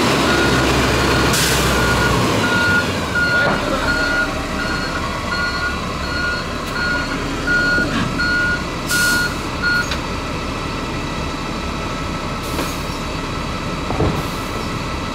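Kirovets K-525 tractor's reversing alarm beeping in a steady repeated pattern over its diesel engine running; the beeping stops about ten seconds in while the engine runs on.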